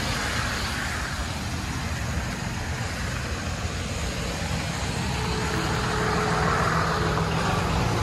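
Road traffic passing on a wet highway: a steady noise of tyres and engines with a low rumble.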